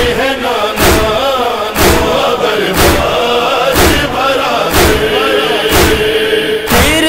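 Chorus of voices chanting a noha refrain, with a heavy thud about once a second keeping the beat, the chest-beating (matam) rhythm of a Shia lament.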